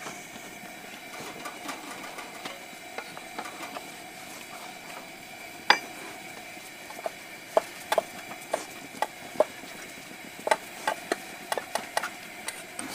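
Knife knocking on a cutting board while chopping vegetables: a single knock about halfway through, then irregular knocks several a second, over a steady faint hum.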